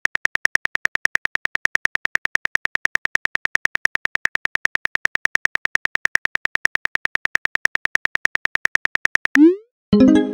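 Phone-keyboard key-click sound effect repeating rapidly and evenly, about eight ticks a second, as a text message is typed out. Near the end the clicks stop, a short rising swoosh marks the message being sent, and then a short pitched chime sounds.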